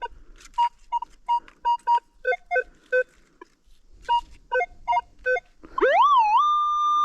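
Metal detector signalling a buried target: a string of short beeps alternating between a high and a lower pitch as the coil is swept over it, then about six seconds in a tone that rises, wavers and settles into one steady high tone.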